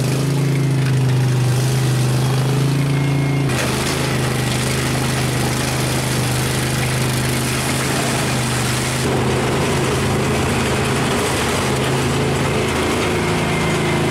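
Tracked vehicle's engine running while the machine drives on its tracks. The engine note changes abruptly about a quarter of the way in and again past the middle.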